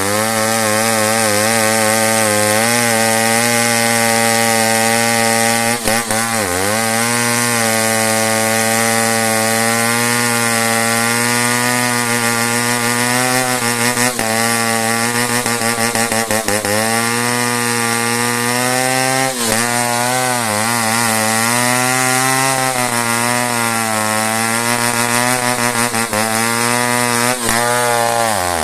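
Chainsaw running at full throttle, cutting into dense merbau hardwood. Its pitch wavers under load and dips now and then as the chain bites, most clearly about six seconds in.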